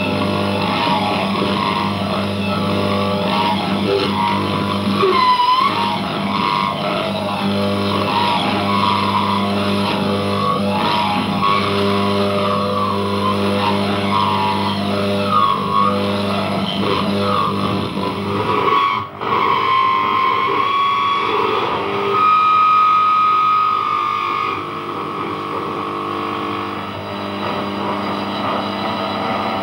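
Radio and TV set speakers putting out a distorted, buzzing mix of steady hum and warbling, gliding whistles as they pick up signals from transmitters swinging on a pendulum. The sound cuts out for an instant about two-thirds of the way through, then settles into steadier held tones.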